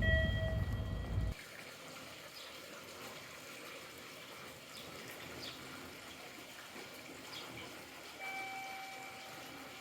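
Steady rush of flowing stream water. A loud low rumble in the first second or so cuts off abruptly, and a few long, steady tones sound near the start and again near the end.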